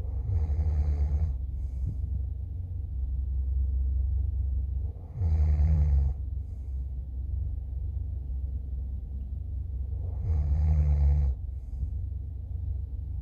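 A person snoring in sleep, three snores about five seconds apart, over a steady low rumble.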